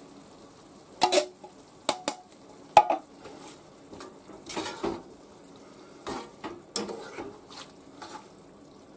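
A plastic spatula stirring diced tomatoes and cabbage in a cast-iron skillet: a few sharp clacks in the first three seconds, then irregular scraping strokes against the pan, over a faint sizzle.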